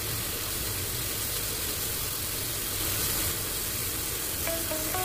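Beef simmering and sizzling in a wok of cooked-down broth, a steady hiss with a low hum beneath; the broth has reduced and the meat is nearly done.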